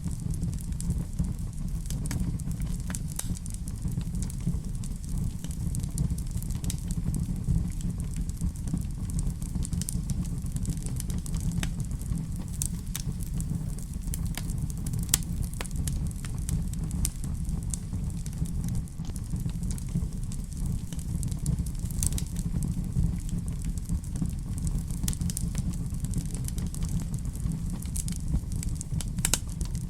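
Wood fire crackling in a fireplace: a steady low rumble of flames with scattered sharp pops and snaps.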